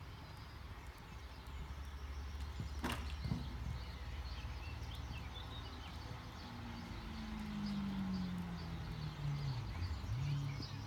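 Outdoor ambience with birds chirping and a single sharp knock about three seconds in. In the second half an engine drone slides down in pitch, then levels off.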